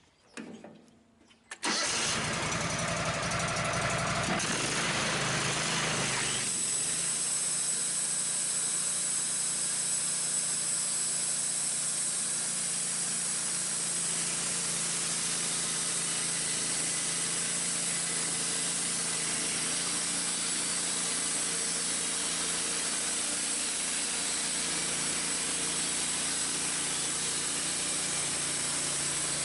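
Wood-Mizer LT15 portable bandsaw mill running, coming in suddenly about two seconds in: its gasoline engine running steadily, joined about six seconds in by a steady high hiss as the band blade saws through a black locust log.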